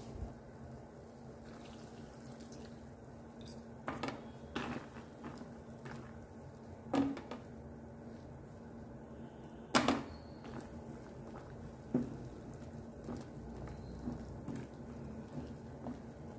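Soya chunks simmering in water in a stainless-steel pot, a soft steady bubbling under a faint low hum, with a few sharp knocks against the pot, the loudest about ten seconds in.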